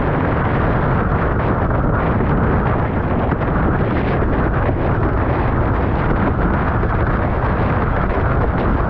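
Strong wind buffeting the microphone in a steady low rumble, mixed with the rush and spray of water under a windsurf board planing fast over choppy sea.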